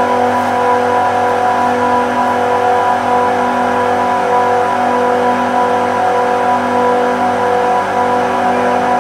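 Industrial compressors running steadily: a loud, constant machine hum with several steady tones that pulse slightly.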